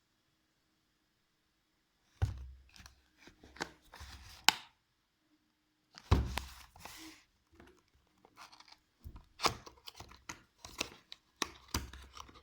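Speaker packaging being handled and opened: irregular tearing, rustling and clicks with dull knocks, starting about two seconds in.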